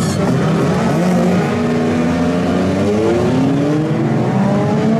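A pack of small stock cars with engines up to 1800 cc accelerating away from a standing race start. Several engines run at once, their pitch climbing over one another from about two seconds in.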